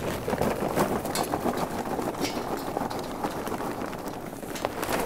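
Charcoal briquettes pouring from a paper bag into the metal charcoal ring of a Weber Smokey Mountain smoker: a dense, continuous clatter of briquettes tumbling onto one another and against the steel.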